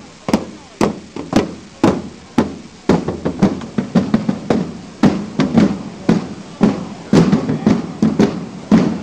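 Field drums of a costumed drum corps beating a steady march: about two hard strokes a second, with lighter strokes filling in between and growing denser after a few seconds.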